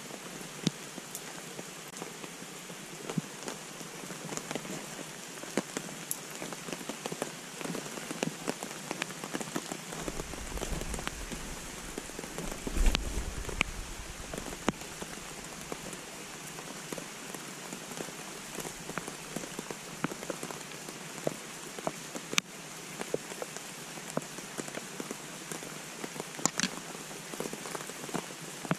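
Steady rain falling through birch trees, an even hiss with scattered sharp ticks of single drops, and a short low rumble near the middle.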